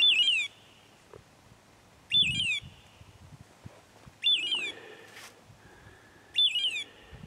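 A short, high, bird-like screech with quick falling notes, repeated four times about every two seconds and identical each time.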